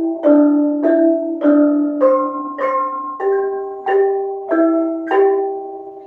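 Bonang kettle gongs of a gamelan played in the simultaneous-striking technique, several bronze kettles hit at once on each stroke so that each beat rings with several pitches together. The strokes come steadily, a little under two a second, and the last one rings out and fades near the end.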